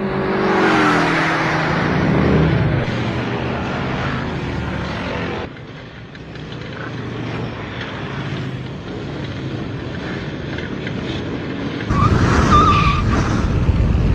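Cartoon car-chase sound effects: engines running at speed, their pitch sweeping under a loud rush as the cars pass. The sound drops away suddenly about five seconds in and stays softer, then a loud rush with a brief tyre squeal comes about twelve seconds in.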